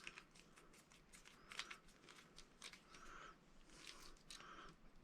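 Near silence, with faint clicks and rustles of small wiring parts being handled: a crimped ring terminal on a ground wire being fitted to a box's ground screw.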